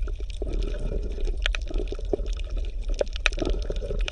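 Underwater water sounds: gurgling water with scattered clicks over a steady low rumble.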